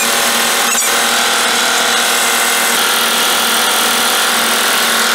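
Small boat's motor running steadily and loudly at close range, an even mechanical sound with a high whine over it. A short high chirp sounds just under a second in.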